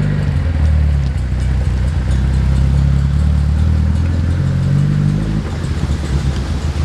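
A car driving with its engine running at a steady note. The engine note drops away about five seconds in.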